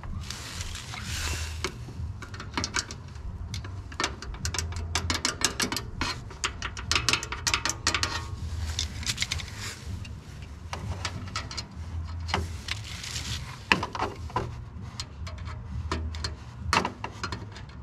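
Irregular light metallic clinking, rattling and scraping from metal parts and tools being handled, with a few short bursts of scraping noise and a steady low hum underneath.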